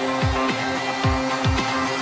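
Electronic background music: a deep kick drum whose pitch drops on each hit, about two beats a second, under steady held synth tones.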